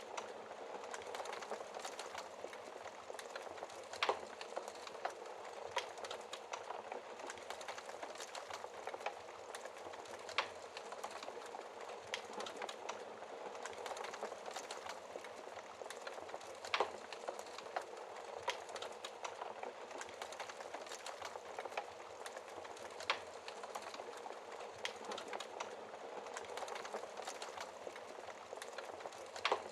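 Wood fire burning in a fireplace: a steady crackling hiss with frequent small clicks and an occasional louder pop, about every six seconds.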